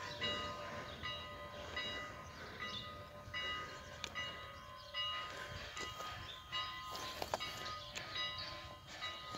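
Canadian National 89, a 1910 2-6-0 Mogul steam locomotive, working slowly at a distance: a soft steam exhaust chuff about every 0.8 s, with thin high ringing tones heard along with the chuffs.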